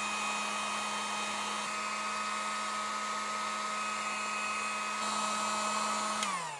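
Electric heat gun running steadily, a fan whine over a blowing hiss, as it shrinks heat-shrink tubing over the antenna's feedpoint and coax connector. Near the end it is switched off and the whine drops in pitch as the fan winds down.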